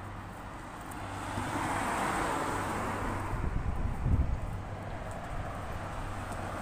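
Road traffic: a passing vehicle's tyre and engine noise swells about a second in and fades again, with wind buffeting the microphone near the middle.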